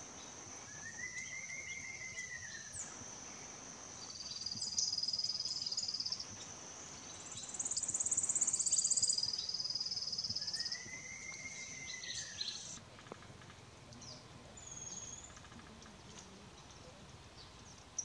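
Forest ambience: a steady high-pitched insect buzz that stops about thirteen seconds in, with pulsed high trills layered over it in the middle. Twice, a bird gives a single arched call that rises and falls.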